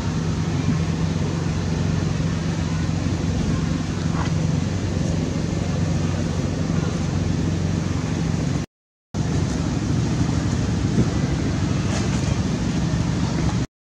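Steady low motor hum over a constant haze of background noise, cut briefly to silence about nine seconds in.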